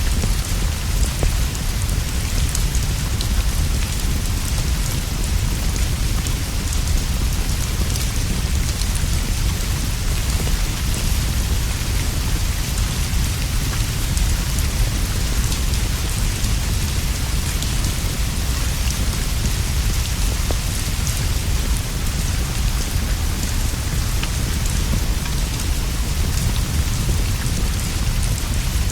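Steady heavy rain with a deep low rumble underneath and scattered faint ticks of drops.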